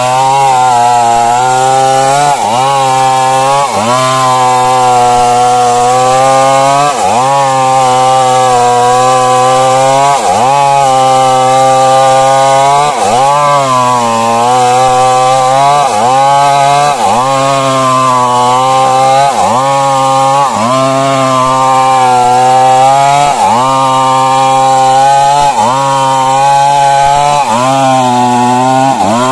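Stihl MS 382 two-stroke chainsaw running at full throttle while cutting into a large tree trunk. Its pitch dips briefly and recovers every second or two as the chain bites under load.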